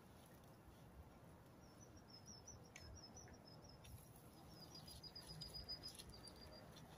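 Near silence with low background noise; from about a second and a half in until near the end, a faint, high-pitched chirping trill runs on.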